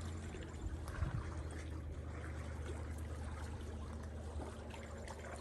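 Faint water trickling and lapping, with a few small clicks, over a low steady hum.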